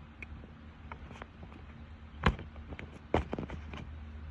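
Small clicks and light scrapes of a tool working at the metal speaker piece inside an opened AirTag, with two sharper clicks a little after two and three seconds in.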